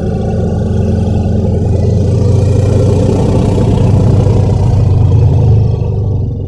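Tyrannosaurus rex sound effect from a cartoon: one long, deep, rumbling growl, steady and rough, that begins to fade near the end.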